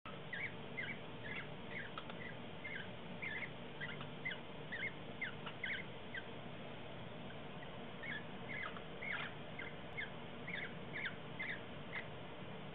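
A small bird chirping: runs of short, high chirps, about three or four a second, breaking off for a couple of seconds in the middle before starting again.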